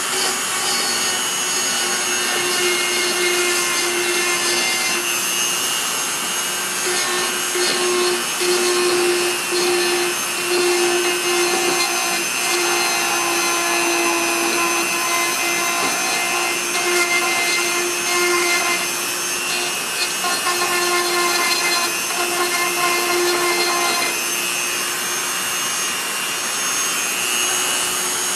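Small electric power tool running continuously, grinding and rubbing against the plastic of a bumper: a steady motor whine over a rough scraping noise that wavers as the tool bears on the work, cutting a V-groove into a crack.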